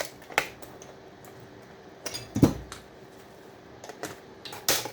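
Sharp clicks and clinks of tools and metal parts being handled while a power-supply circuit board is dismantled for its copper, with a heavier thud about two and a half seconds in and another sharp click near the end.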